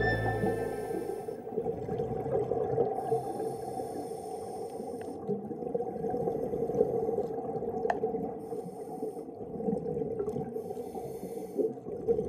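Muffled underwater sound heard through a camera's waterproof housing: water noise with a scuba diver's regulator breathing and bubbles, rising and falling irregularly, and a few faint clicks.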